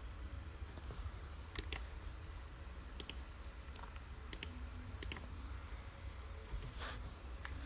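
Sharp clicks of a computer mouse and keys, mostly in quick pairs every second or so, over a faint steady high-pitched whine and low hum.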